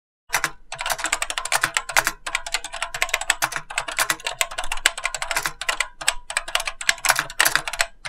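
Fast typing on a BBC Micro Model B keyboard with linear mechanical switches, which the owner believes are Futaba, in a largely empty, very resonant steel case: a loud, rapid, continuous clatter of key strikes with only brief pauses.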